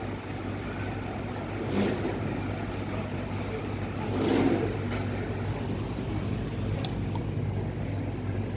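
Tron AT 60 140 W wall fan running, a steady hum and whir from its motor and blades. Two brief louder noises rise over it about two and four and a half seconds in, and there is a short click near seven seconds.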